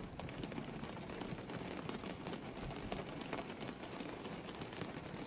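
Steady rain falling, many small drops ticking over an even low hiss.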